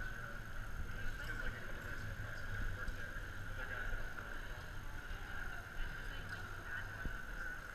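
Steady background hum of an indoor climbing hall, with faint scattered knocks and taps.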